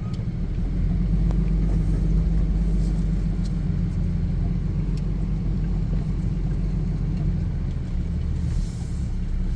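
Cummins diesel engine of a Ram 2500 pickup running steadily under load with a low rumble, towing a trailer through a river crossing.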